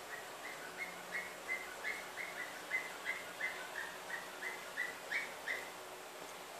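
Rainbow lorikeet giving a steady run of short chirps, about three a second, that stops about five and a half seconds in.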